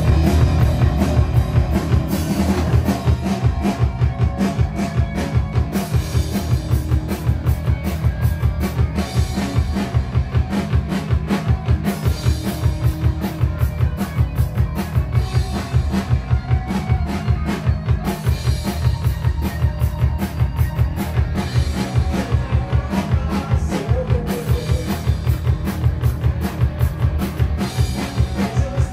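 Live rock band playing, led by a driving electric bass line over a drum kit keeping a steady beat; the band comes in abruptly at the start.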